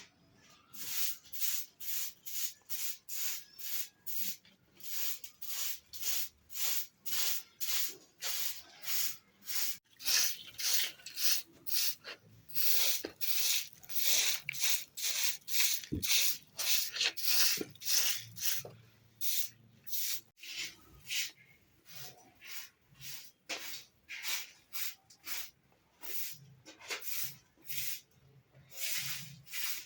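Rhythmic scraping strokes, about two a second, with a few short breaks.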